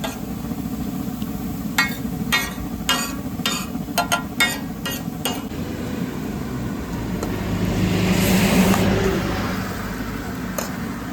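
Steady vehicle engine and road rumble, with a quick run of short sharp sounds about two to five seconds in and a louder swell of noise around eight to nine seconds in.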